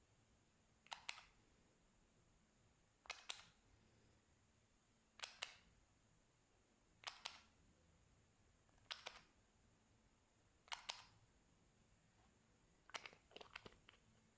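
Slime being pressed, giving short crackling clusters of clicks and pops about every two seconds. The last cluster, near the end, is a longer run of pops.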